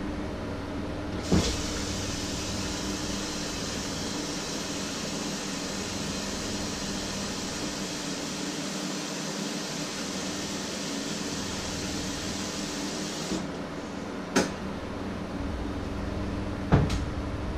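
A steady rushing noise that starts with a knock about a second in and cuts off about 13 seconds in, over a constant low hum, followed by two sharp knocks of kitchenware near the end.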